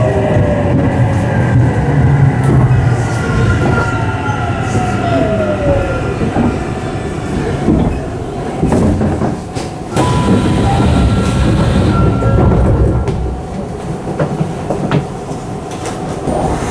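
Tokyu 3000 series electric train running, heard from inside the car: a steady rumble with wheels clicking over rail joints, and the motor whine falling in pitch over the first six seconds as the train slows for the next station.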